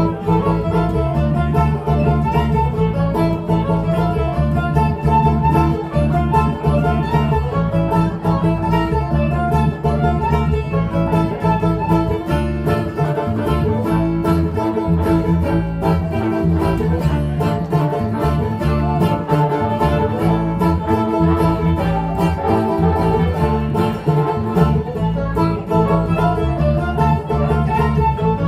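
Bluegrass band playing an instrumental passage live: picked banjo and guitar with a fiddle, over a steady driving rhythm.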